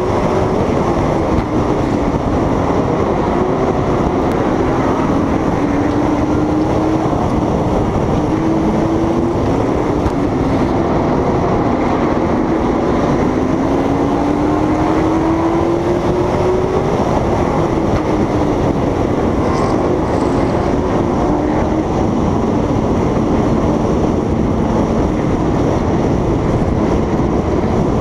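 Oval-track race car's engine at racing speed, heard on board over heavy wind and road rush. The pitch climbs and drops in repeated waves as the car accelerates and lifts, then runs steadier at a lower pitch for the last several seconds.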